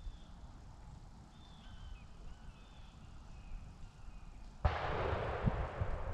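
Shotgun shot about four and a half seconds in: a sudden blast followed by a rolling echo that fades over about a second and a half.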